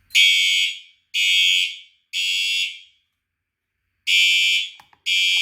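Siemens U-MMT ceiling fire alarm horn sounding the temporal-three evacuation pattern: three loud buzzy blasts about a second apart, a pause, then two more as the cycle repeats. It signals an alarm after a detector was set off in a system test.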